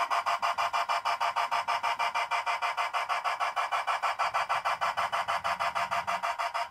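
Steam chuff from a G scale model steam locomotive's sound unit: a fast, even chuffing of about ten beats a second as the locomotive runs.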